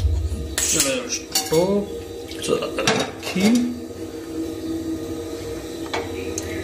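Steel saucepan knocking and clanking against the pan supports of a gas stove as it is set on a freshly lit burner, with several sharp metal knocks in the first three seconds. Under it runs the low steady rumble of the burning gas flame.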